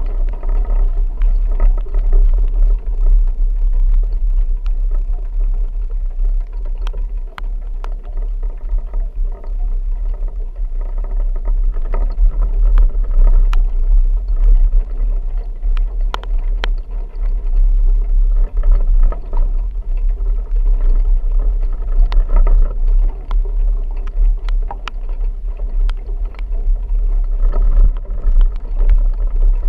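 Vehicle being driven: a steady deep rumble of engine and road noise, with scattered sharp ticks over it.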